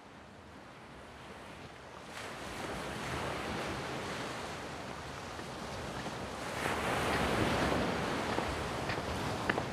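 Ocean surf washing in a steady, rushing wash that fades in and swells louder, surging about two-thirds of the way through. A few short, sharp clicks come near the end.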